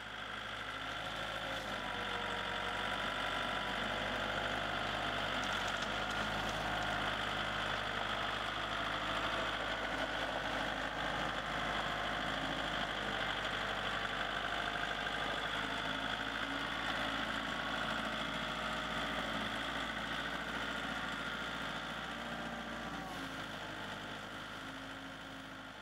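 Kubota compact loader-backhoe tractor's diesel engine running steadily. It fades in at the start and fades slowly out toward the end.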